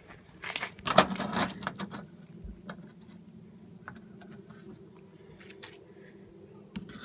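Aluminum wing mounting bracket pieces clinking and clattering as they are handled and set down on the car's hatch, a cluster of sharp metallic clicks about a second in, then scattered light taps over a faint steady hum.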